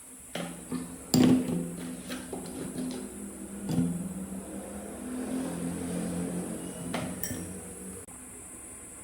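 Scattered metallic clinks and knocks, the loudest a sharp strike about a second in, over a low hum that stops near the end.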